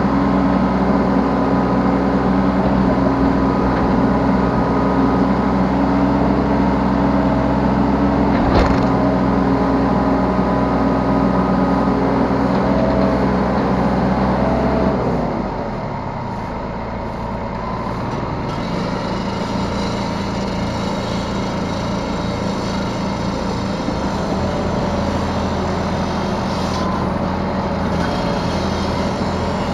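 Yanmar B3 Sigma mini excavator's diesel engine running at working revs, with a single knock about a third of the way in; about halfway through the revs drop and it settles to a lower, steady speed.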